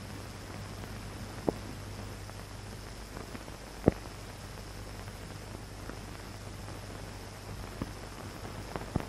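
Surface noise of an old film soundtrack with no programme sound: a steady hiss and low hum, broken by sharp pops about one and a half and four seconds in, the second the loudest, and a few smaller clicks near the end.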